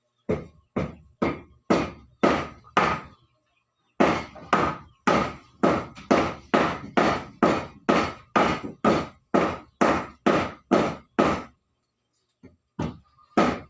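Hammer blows on wooden flooring, struck in an even run of about two a second with a slight ring to each hit, broken by two short pauses.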